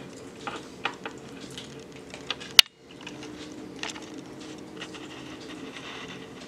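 Hands kneading and pulling a lump of fluffy glitter slime in a plastic bowl, working the glitter through it: faint scattered squishes and small sticky clicks, with one sharp click about two and a half seconds in.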